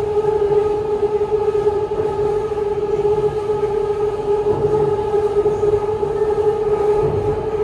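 BTS Skytrain train running at a steady pace, with a constant hum holding one pitch over a low, uneven rumble.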